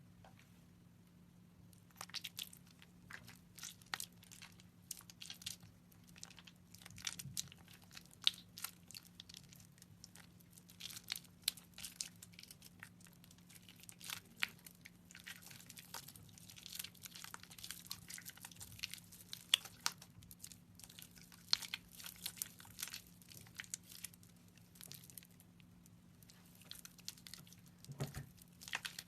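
Soaked bar soap squeezed and crushed by hand, giving dense crackling and crunching that begins about two seconds in.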